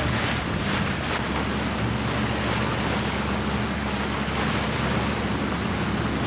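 Sailboat under way: water rushing along the hull and wind buffeting the microphone, over a steady low hum.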